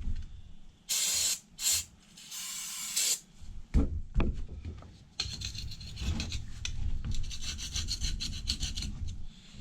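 Two short hisses of an aerosol can of brake parts cleaner sprayed onto an old starter motor, followed by a long stretch of rapid, repeated scraping as crud is scraped off the starter's housing.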